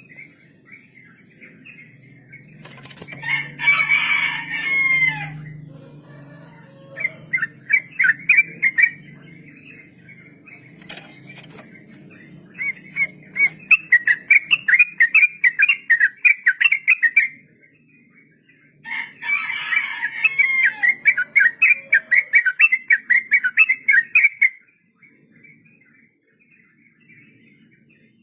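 Yellow-vented bulbul singing rapid-fire 'ropel' phrases: long runs of quick repeated notes around the same pitch, coming in three bursts of a few seconds each. A coarser, rustling burst comes a few seconds in, and another where the last run starts.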